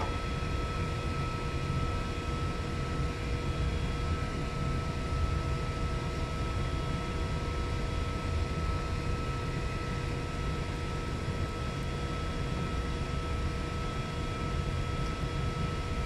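Steady drone of running machinery: a low rumble with several constant hum tones over an even hiss, unchanging throughout.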